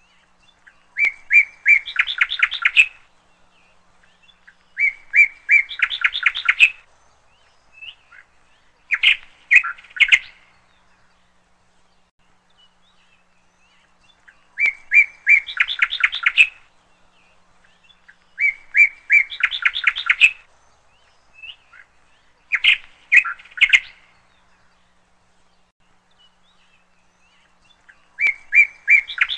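A songbird singing the same short phrase over and over, about every four seconds. Each phrase is a run of quick repeated notes that rises into a fast trill.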